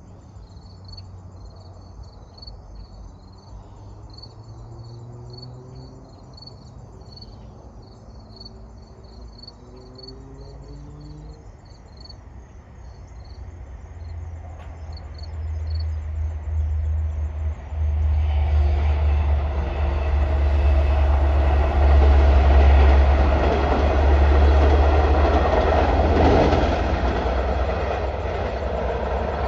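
Long Island Rail Road diesel locomotive-hauled passenger train approaching and passing close by on a bridge: a deep diesel rumble builds from about halfway through, with wheel and rail noise loudest in the last third, then starting to fade. Crickets chirp in rapid pulses before the train arrives.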